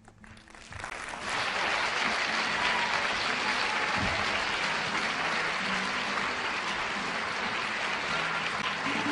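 Audience applauding, swelling quickly over about the first second into steady applause.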